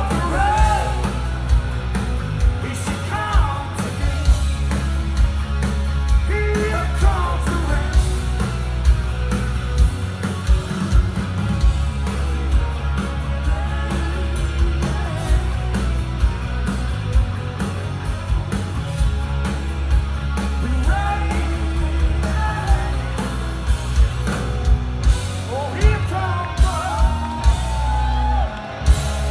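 Rock band playing live, recorded from within the audience: electric guitars, bass and drums under a male lead vocal that comes in and out, with a strong bass low end and steady drum hits.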